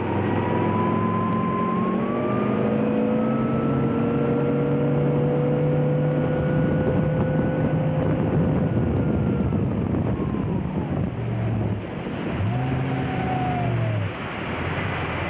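Motorboat engine running under way, with water rushing past the hull and wind on the microphone. The engine's pitch climbs steadily over the first several seconds as the boat speeds up, falls away about eleven seconds in, briefly picks up again, then drops back near the end.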